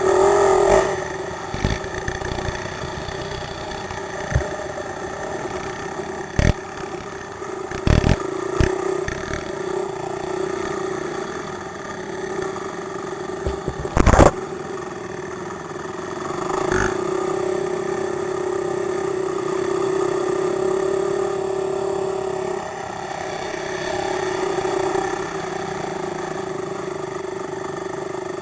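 Quad (ATV) engine running steadily, heard from a helmet-mounted camera. The engine gets louder for several seconds past the middle and then eases off. Several sharp knocks break in, the loudest about halfway through.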